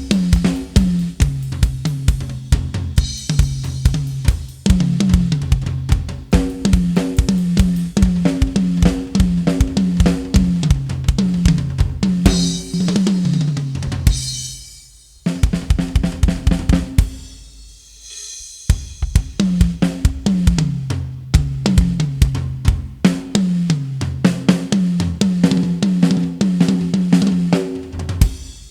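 Music with a loud drum-kit beat (kick, snare, cymbals and hi-hat) over a repeating bass line, dropping out briefly twice about halfway through.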